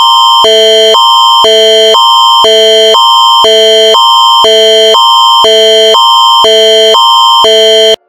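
Canadian Alert Ready emergency attention signal: two chords of steady electronic tones swap back and forth every half second, very loud. It is the alert tone that comes before an emergency bulletin.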